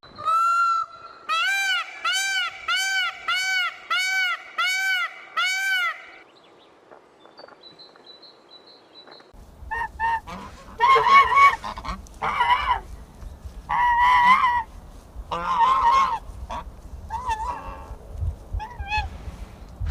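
A peacock calling in a rapid series of about eight loud, arching cries in the first six seconds. After a short lull, from about ten seconds in, a goose honks repeatedly, seven or so separate honks over a low rumble.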